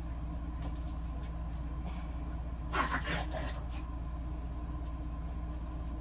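A steady low hum, as of a running appliance or motor, with a brief voice-like sound about three seconds in.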